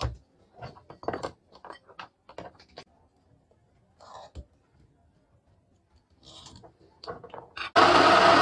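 Short scrapes and taps of a marking tool and steel square on a wooden block. Near the end a table saw cuts in abruptly, running loudly and steadily; it is the loudest sound.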